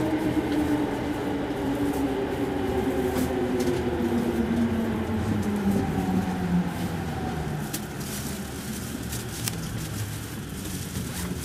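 Electric commuter train braking into a station: the motor whine slides steadily down in pitch as it slows, with a few light clicks from the wheels over the track.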